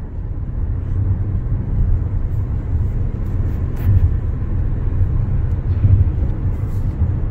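Steady low rumble of road and wind noise inside the cabin of a Hyundai SUV travelling at freeway speed.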